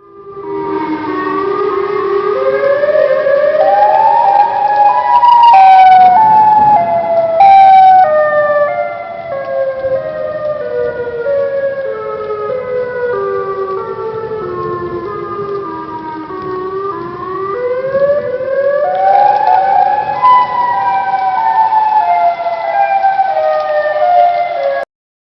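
Siren wailing: its pitch climbs over about five seconds, falls slowly for several seconds, climbs again and holds, then cuts off suddenly near the end.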